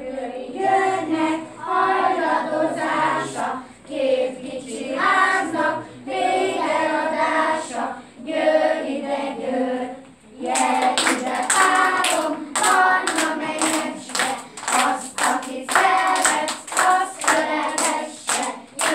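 A group of young children singing a song together. About halfway through they start clapping their hands in time with the singing.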